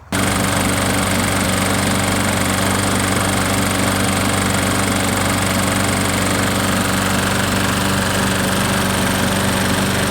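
Gas lawn mower engine, freshly tuned up, running at a steady speed. It cuts in abruptly right at the start and holds an even, unchanging note.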